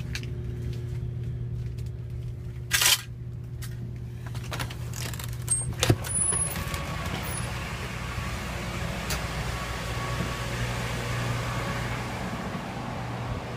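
Steady low machine hum of water-damage drying equipment, including a commercial dehumidifier. There is a brief loud rustle about three seconds in and a knock near six seconds, and from about seven seconds a steady rush of air joins the hum.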